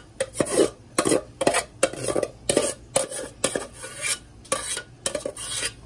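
Metal spoon scraping and knocking against the inside of a metal pot as boiled rice is scooped out into a steel strainer, in repeated irregular strokes about twice a second.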